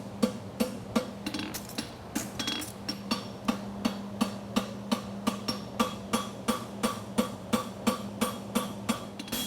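Farrier's hammer striking a steel horseshoe on an anvil in an even rhythm of about three blows a second, each blow ringing briefly. A steady low hum runs underneath.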